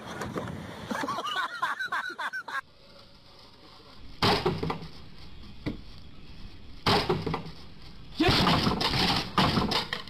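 Wooden boards cracking and breaking: four loud, sudden crashes in the second half, the longest about eight seconds in.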